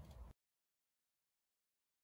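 Dead silence: a faint trace of room noise cuts off about a third of a second in, and the sound track then drops out completely, as at an edit.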